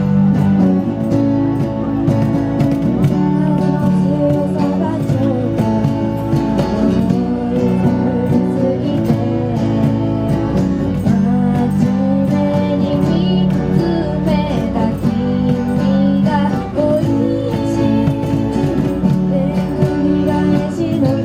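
Live music: a strummed acoustic guitar with a singing voice.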